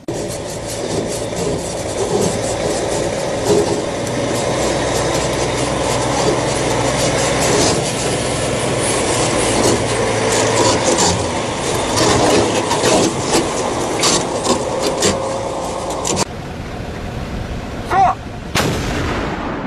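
Engine of a six-wheeled army truck carrying a 105 mm howitzer running as the vehicle drives over rough, muddy ground, with many small rattles and knocks from the body. The sound cuts off abruptly a few seconds before the end, and a single sharp thump follows.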